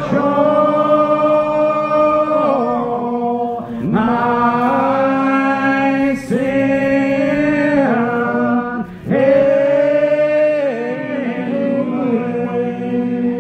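Unaccompanied group of voices singing a slow hymn, with long drawn-out notes that slide between pitches and brief breaks every few seconds.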